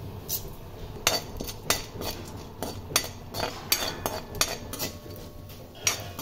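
A spatula clinking and scraping against a metal kadhai as food frying in ghee is stirred, with irregular knocks several times a second from about a second in.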